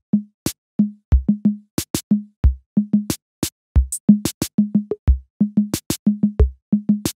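Intro music made only of a bare electronic drum beat: deep kick drum, pitched drum hits and sharp snappy clicks, several hits a second with short gaps between.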